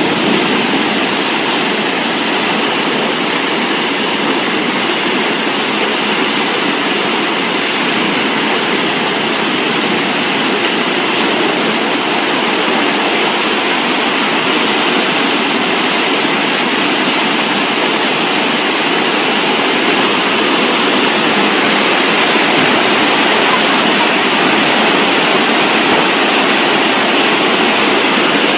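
Storm water rushing in a steady, dense hiss that holds without a break.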